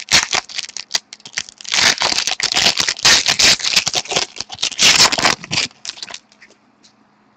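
Foil wrapper of a hockey card pack being torn open and crinkled by hand: dense, irregular crackling and rustling that stops about six seconds in.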